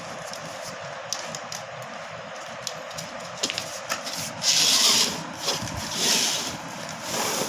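Rasping, rubbing sounds of material being worked over a steady hiss with light ticks, with three louder swishes about four and a half, six and seven seconds in.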